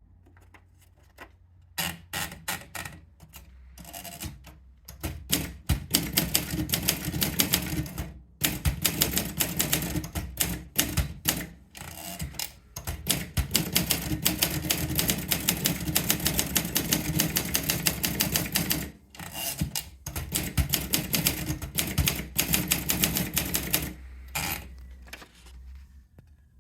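Olympia SM5 manual portable typewriter being typed on: rapid key strikes in fast runs, with a few short pauses between them. It starts a couple of seconds in and ends with a few scattered strokes near the end.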